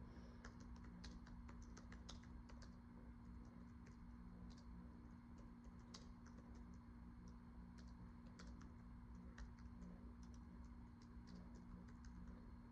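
Faint, irregular clicking of typing on a keyboard, over a low steady hum.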